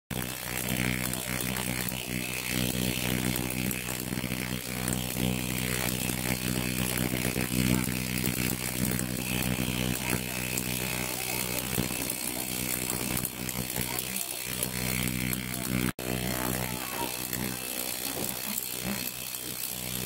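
Small tabletop ultrasonic cleaner running with water in its tank: a steady electrical buzz with hiss from the cavitating water. The sound cuts out for an instant about sixteen seconds in.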